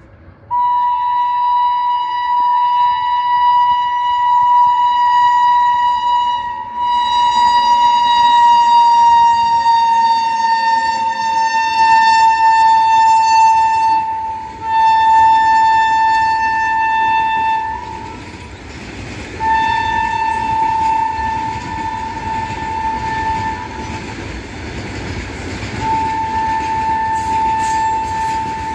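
A WAG-9 electric locomotive's horn sounds one long, loud blast, its pitch dropping slightly about a third of the way through as the train passes, then three more long blasts. In the second half the goods wagons rumble and clatter over the rails as the freight train runs through at speed.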